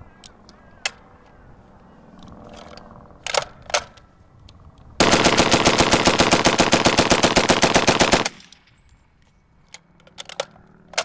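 Water-cooled Vickers Mark 1 .303 machine gun firing one controlled burst of about 25 rounds at a steady seven to eight shots a second, lasting a little over three seconds and starting about five seconds in. This is the normal rate of fire, with the burst length set by a gap in the ammunition belt. A few sharp metallic clicks come before and after the burst.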